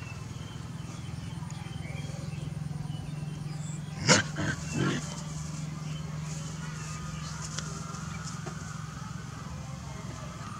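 A dog gives three short cries in quick succession about four seconds in, the first the loudest, over a steady low hum.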